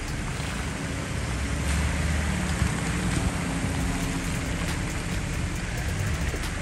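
Nissan Patrol 4x4 driving slowly past on a wet gravel track: low engine hum and tyres on wet gravel, strongest as it passes about a second or two in, over a steady hiss.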